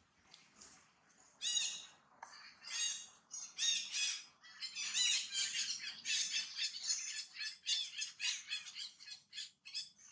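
Baby macaque screaming, a fast run of high-pitched squeals that starts about a second and a half in and keeps going almost without a break.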